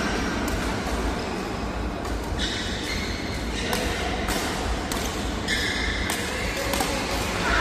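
Badminton rally: rackets striking the shuttlecock in a string of sharp cracks about every half second to second, with short squeaks of sneakers on the court floor between them.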